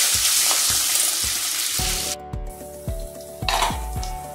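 Tempering spices (cumin, curry leaves, coriander, chilli and turmeric) sizzling in hot oil while a ladle stirs them. The sizzle stops about two seconds in, leaving background music with a steady beat.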